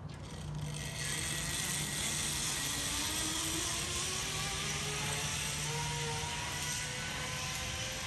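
Zip-line trolley running along a steel cable: a whirring hiss that sets in about a second in, with a faint whine that rises in pitch as the trolley speeds up.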